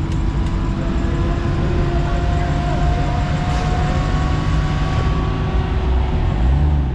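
Dodge Challenger SRT's V8 running with a deep, steady exhaust rumble as the car creeps past at walking pace, with a thin steady whine above it. The rumble swells briefly near the end.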